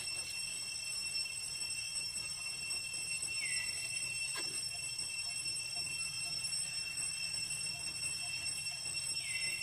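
Forest ambience: a steady, high-pitched insect drone, with a falling call that sweeps down and settles into a held note about three and a half seconds in and again near the end.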